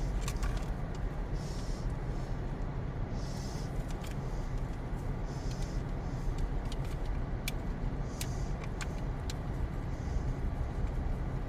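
Steady low rumble of a car's engine running, heard inside the cabin, with a few light clicks and soft rustles as the toy's paper stickers and passport are handled.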